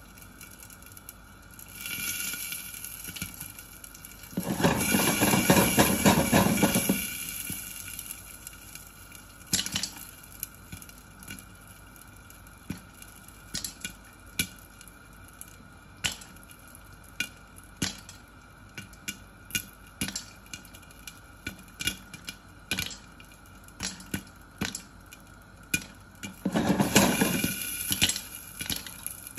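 Popcorn popping in a glass-lidded pan on the stove: sharp single pops, one or two a second, from about ten seconds in. Two louder stretches of dense rushing noise come about five seconds in and again near the end.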